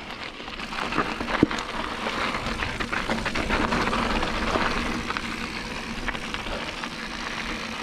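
Diamondback Recoil mountain bike rolling over a dirt and gravel trail: a steady crunch of tyres on loose ground, dotted with small clicks and rattles from the bike, a little louder from about a second in.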